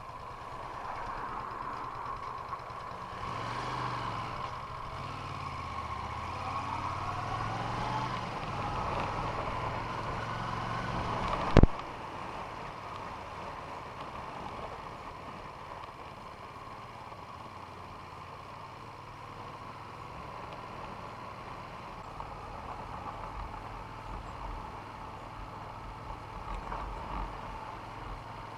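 A vehicle engine running, its pitch shifting through the first half, with one loud sharp knock about twelve seconds in, after which it runs on steadily.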